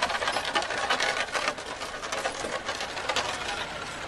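Loaded bullock cart rolling past, its spoked wheels and wooden frame rattling in a rapid, uneven clatter.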